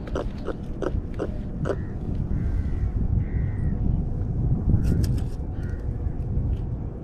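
A crow cawing a few times over a steady low rumble, with a quick run of sharp clicks in the first two seconds.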